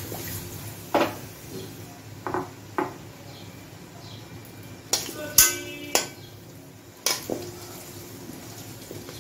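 Metal spatula knocking and scraping against an aluminium kadai while potato pieces are turned in hot oil: a string of irregular sharp clinks, one of them ringing briefly about five seconds in.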